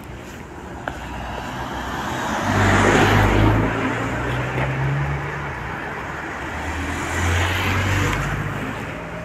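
Two cars driving past on a street, the first loudest about three seconds in and the second about seven seconds in, each engine note swelling and then fading away.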